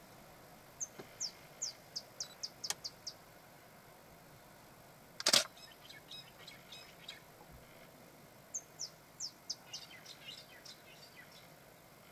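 A bird singing two phrases, each a quick run of about eight short, high, downward-sweeping notes that come faster toward the end. Between the phrases, about five seconds in, comes one loud, sharp click.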